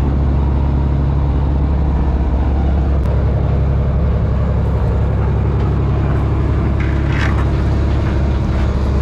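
A fishing trawler's engine running steadily with a deep, even drone. A short rustle or scrape comes about seven seconds in.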